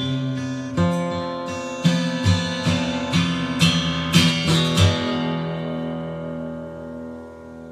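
Acoustic guitar playing a closing run of chords, about nine strokes over the first five seconds; the last chord is left to ring and slowly fades away.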